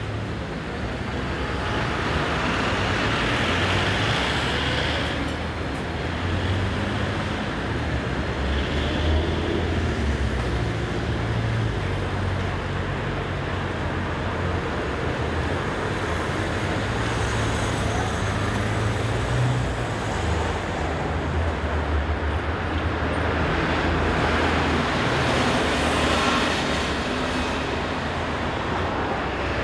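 Steady street traffic rumble at a tram stop, with a Toden Arakawa tram's motors and wheels swelling as it pulls away a few seconds in, and another swell of tram or traffic noise about three-quarters of the way through.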